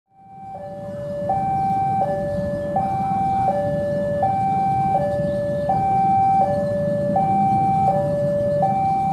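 Railway level-crossing warning alarm sounding two alternating electronic tones, high then low, switching about every three-quarters of a second, over a low rumble from the approaching diesel locomotive. It fades up from silence in the first second.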